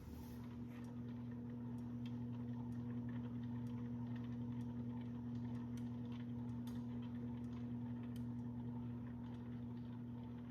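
Seasons 32155 52-inch ceiling fan running on high in reverse: a steady motor hum with irregular light ticks and clicks over it, which the owner hears as something inside the motor.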